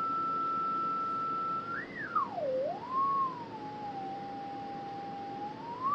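Kenwood TS-940S HF transceiver sounding the steady whistle of its built-in calibration marker signal. Less than halfway in, the pitch sweeps up, drops low, rises again and settles a little lower as the main tuning knob is turned, then climbs back near the end.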